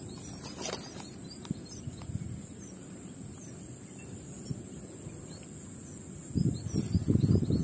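Outdoor ambience with a steady high-pitched insect buzz and faint bird chirps. About six seconds in, a louder stretch of low rustling and thumping.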